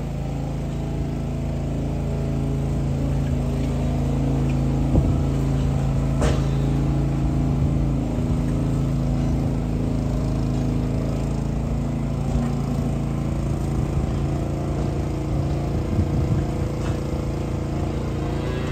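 Farm machinery engine running steadily with a low hum, with a single sharp click about six seconds in.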